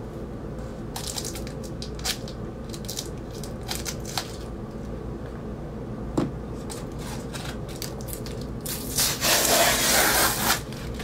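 Scissors cutting into a cardboard mailer, with scattered snips and clicks. Near the end comes a loud scraping rustle lasting about two seconds as a magazine is slid out of the cardboard.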